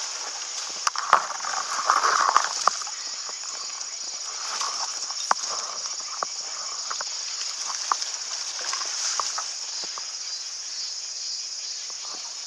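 Steady high insect drone from the surrounding summer vegetation, under footsteps and rustling through ferns and undergrowth, with scattered sharp snaps and clicks that are loudest in the first three seconds.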